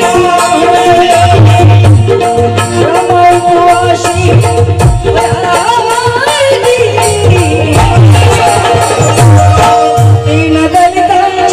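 Music: a Marathi devotional folk song (bhim geet) playing, with hand drums keeping a steady beat under held melody tones.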